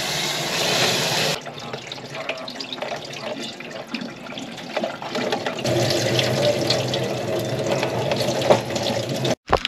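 Cold tap water running into a sink while freshly boiled noodles are rinsed, loudest for the first second or so and then running softer, with small clinks of the pot or strainer.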